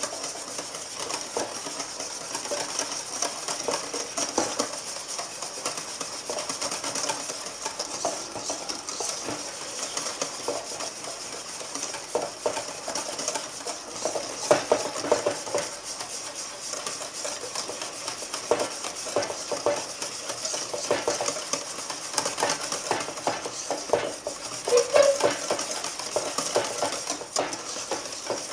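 Wire whisk beating thickening custard fast in a stainless steel bowl: a rapid, continuous run of scraping and clicking as the wires hit the metal. The fast beating keeps the thickening custard from scorching on the bottom and forming lumps.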